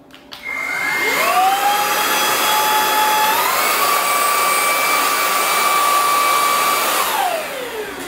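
MOOSOO K17 cordless stick vacuum with its motorized roller head running: the motor spins up with a rising whine, steps up in pitch about three seconds in as it is clicked from the first suction level to the strongest, then is switched off and winds down with a falling whine near the end.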